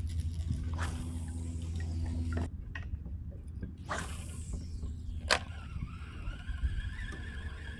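Water lapping around a kayak, then a cast with a spinning reel: a swish about four seconds in, a sharp click, and a thin, steady whine of line being reeled in until the end.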